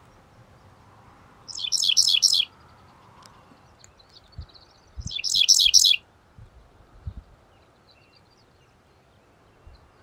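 Male dickcissel singing twice, about three seconds apart. Each song is about a second long: a quick run of high, repeated notes.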